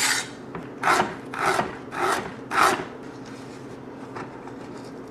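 Kitchen knife scraping across a wooden cutting board in four short rasping strokes about half a second apart.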